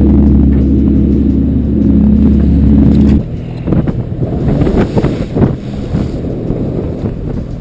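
A party boat's engine drones steadily, then gives way suddenly about three seconds in to wind buffeting the microphone and waves splashing against the hull.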